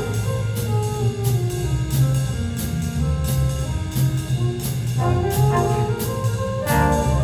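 Big band playing swing jazz: trumpets, trombones and saxophones over bass and a drum beat of about two strokes a second. Fuller brass chords come in about five seconds in and again near the end.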